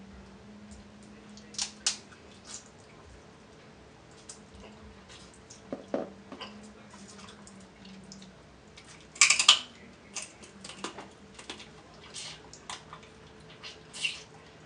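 Snow crab leg shells being cracked and picked apart by hand: scattered crisp cracks and clicks, with the loudest crackle a little past the middle.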